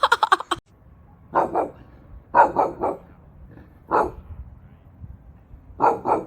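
A dog barking: about eight short barks in groups of two, three, one and two.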